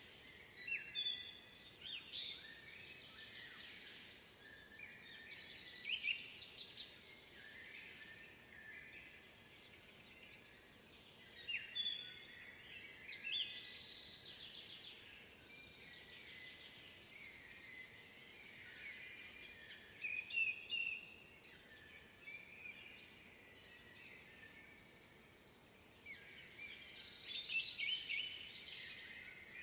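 Songbirds singing: about five louder song phrases come at intervals of several seconds over continuous softer chirping from other birds.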